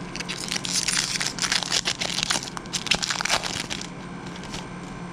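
Foil wrapper of a 2012 Topps football card pack crinkling and tearing as it is ripped open by hand. Dense crackling that stops about four seconds in.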